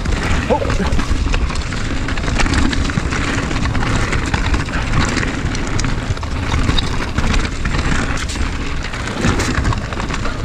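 Mountain bike running fast down dirt singletrack, heard through a chest-mounted GoPro: wind buffeting the microphone and tyre noise make a steady rush, and frequent clatters and knocks come from the bike jolting over the rough trail.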